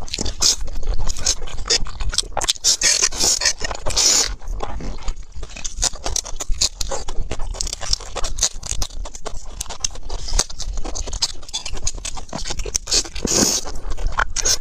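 Mouth sounds of eating spicy noodles: slurping and wet chewing, a quick, dense run of smacks and clicks with a few louder slurps.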